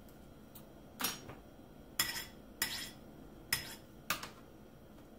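Metal fork clinking against a ceramic bowl while guacamole is mixed: about five sharp clinks spaced half a second to a second apart.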